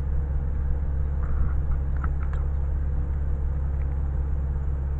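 Steady low hum, with a few faint light clicks from a cable connector being lined up and pushed onto a Troll 9500 sonde.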